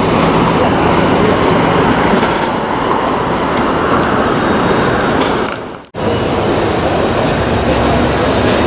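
New York City subway train running at speed, a loud steady rumble and rattle of the car with faint regular clicks from the wheels. The sound fades and drops out briefly about six seconds in, then resumes unchanged.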